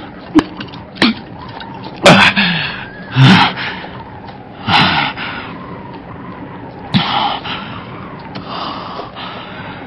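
A man gasping and groaning in pain: four loud, heavy gasps a second or two apart, each falling in pitch, after two sharp clicks in the first second.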